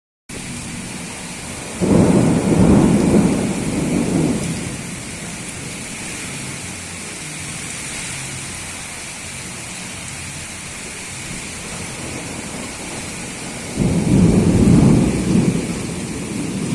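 Storm wind and rain, a steady hiss, broken twice by loud, low rumbles lasting two to three seconds each: one about two seconds in, one near the end.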